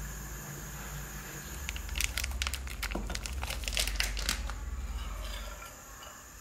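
Plastic food packets crinkling and rustling in the hands as beef meatballs are squeezed out of them, with a run of sharp crackles in the middle, over a low steady hum.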